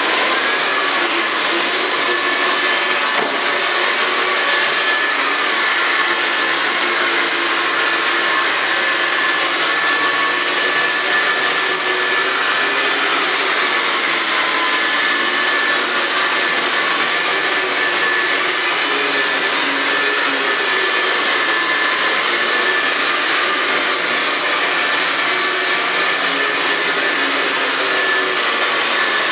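Electric motor and brushes of a Host Liberator carpet cleaning machine running steadily, with a steady high whine over the motor noise.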